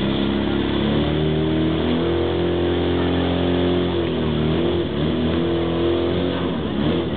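Portable fire pump engine running hard under load, pushing water through the hoses to the spraying branches, its pitch wavering slightly as the revs shift.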